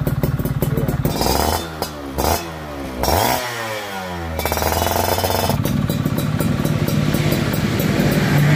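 Yamaha F1ZR's two-stroke single-cylinder engine running through an aftermarket Kensae Pro Exhaust. It idles with a rapid pulsing note, is revved up several times from about a second in, each rev falling back in pitch, and then settles back to idle.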